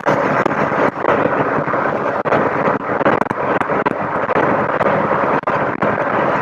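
Rover Metro's 1.8 VVC K-series engine running under way, with engine, road and wind noise heard from inside the car, steady and loud. There are a few brief dropouts in the sound.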